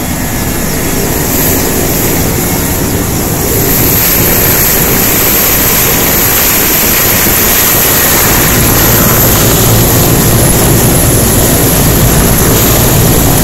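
Military helicopter running on the ground close by, a loud steady turbine whine over the choppy beat of the rotor, with rotor wash blowing across the microphone.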